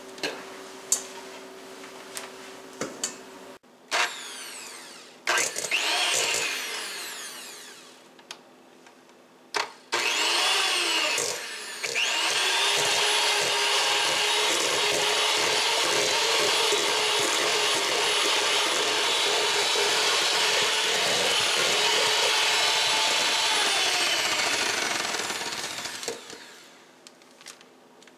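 Electric hand mixer whipping cream cheese in a metal bowl. It starts and stops in short bursts that wind down, acting up in the thick icing, then runs steadily for about fourteen seconds before slowing and stopping near the end. A few clicks and knocks come first.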